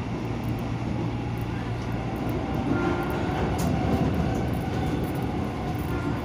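Commuter electric train running, heard from inside the carriage: a steady rumble of wheels on track, with a low motor hum that fades about two seconds in.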